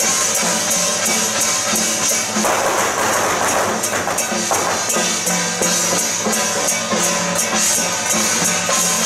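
Lively festive troupe music: a steady beat of drums and clashing cymbals under a melody line, as the dancers play hand drums and cymbals. A short burst of rougher noise sits over the music about two and a half seconds in.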